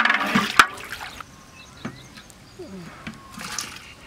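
Metal ladle stirring and sloshing turmeric water in a large aluminium cooking pot, loudest in the first second, then dying down to a quiet stretch with only faint sounds.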